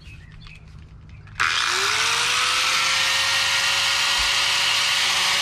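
Corded angle grinder switched on about a second and a half in, its motor whine rising as it spins up and then holding steady as it grinds against the steel bumper. It carries a grinding wheel rather than a cut-off wheel, so it wears at the metal instead of cutting through.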